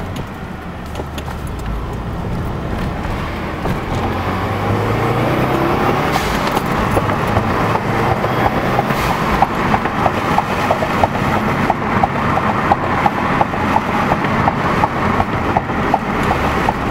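Subaru WRX's turbocharged 2.0-litre flat-four pulling the car along, heard from inside the cabin, with road noise building as the speed rises. From about six seconds in, a regular light ticking, a few times a second, runs underneath.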